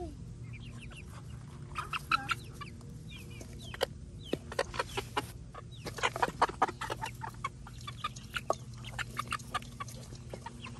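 A small flock of young hens clucking and giving short chirping calls, mixed with sharp taps of beaks pecking in a steel bowl, busiest about four to seven seconds in.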